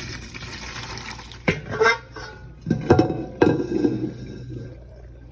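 Hot pasta water pouring and rushing out of a pot as the penne is drained, then four sharp clanks with a short ring, from the pot and strainer being knocked and handled.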